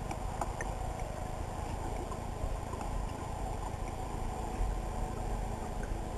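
Muffled, steady low rumble of water noise heard underwater through a diving camera, with scattered faint clicks.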